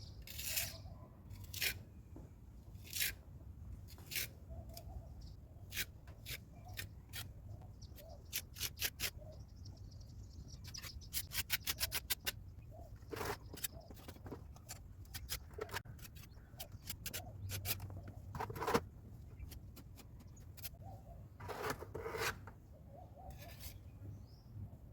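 Short scraping strokes and sharp clicks of a hand tool working filler into the cracks and joints of brickwork, with a quick run of rapid clicks about eleven seconds in. A faint low hum runs underneath.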